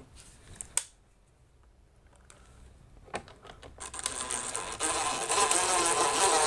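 Cordless drill driving a screw through a plastic vent-fan trim flange into the ceiling, running steadily from about four seconds in after a few light clicks; the screw is biting into the wood framing.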